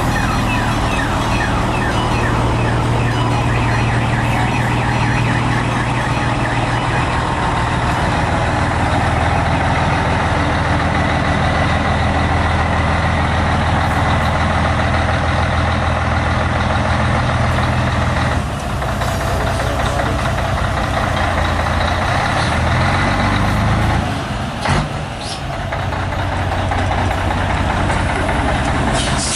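Scania 112 truck's diesel engine running steadily. Its note changes about eighteen seconds in and dips briefly about twenty-five seconds in.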